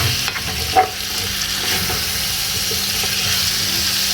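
Chicken stir fry with grated tomato and garlic sizzling steadily in a hot pan, with one sharp click under a second in.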